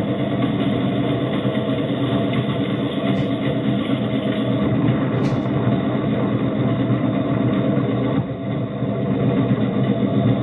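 Engine of a Suzuki Samurai converted into a rail cart running steadily while the vehicle rolls along the railroad track on steel rail wheels, with a brief dip in level just after the eighth second.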